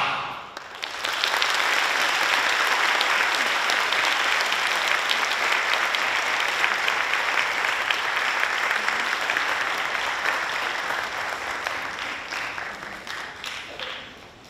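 A children's choir's last sung note cuts off, and an audience breaks into steady applause that fades away near the end.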